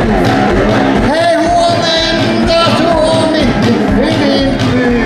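Live rock band playing: a steady drum beat and guitar, with a long held melody note through the middle.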